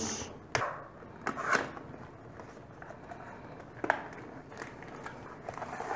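Small cardboard box being opened by hand: its round seals broken and the flap pulled open, with scattered short taps and crackles of card and paper.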